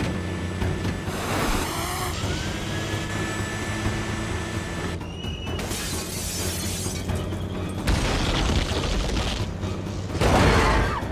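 Action-film soundtrack: dramatic score music mixed with crashing and impact effects, and near the end a loud surge of metal grinding along pavement as the crane truck's underside scrapes the road.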